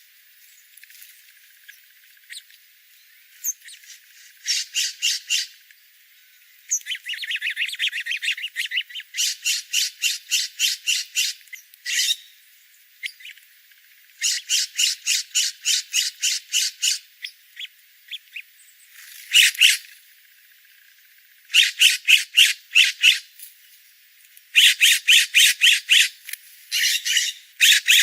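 A bird giving harsh, chattering calls in rapid runs of about four to five notes a second. Each run lasts one to three seconds, with brief pauses between them.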